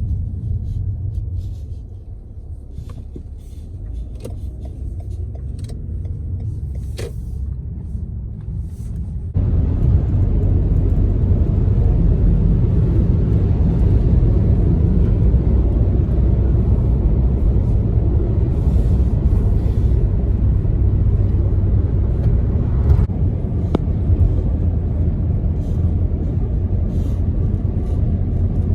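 Road traffic rumble from passing motor vehicles, stepping up suddenly to a louder, steady rumble about nine seconds in.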